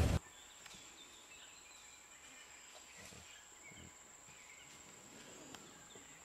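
Faint forest ambience: scattered bird chirps over a steady high-pitched whine, with a few soft rustles.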